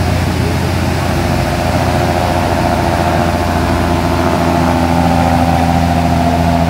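Express passenger boat's engines running hard as it passes at speed: a steady low drone with a level engine whine that strengthens from about halfway through.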